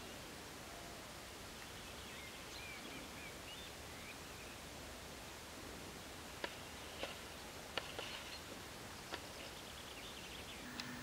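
Faint outdoor ambience: a steady low hiss with thin, high, bird-like chirps a few seconds in, then five or six sharp clicks in the second half.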